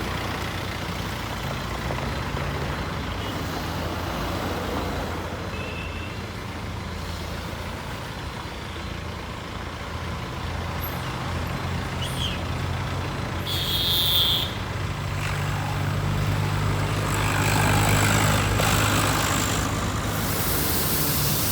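Case backhoe loader's diesel engine running steadily, then working harder and louder in the last few seconds. A short hiss comes about 14 seconds in.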